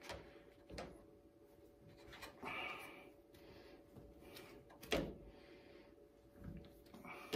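Hand work on rubber weatherstripping and the car's roof rail: a few light clicks and knocks, the loudest about five seconds in, and a brief rustle of handling about two and a half seconds in, over a faint steady hum.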